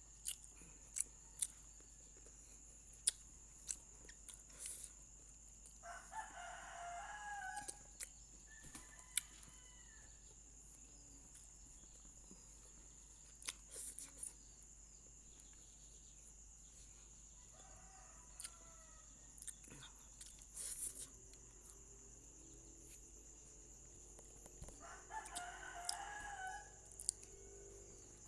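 A rooster crowing twice in the background, each crow lasting about a second and a half, one several seconds in and one near the end. Scattered sharp clicks and taps come in between.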